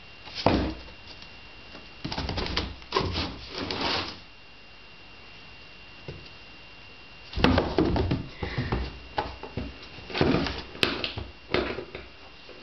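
Cats scrabbling in and on a cardboard box: spells of cardboard scratching, rustling and knocking, with a lull of a few seconds in the middle.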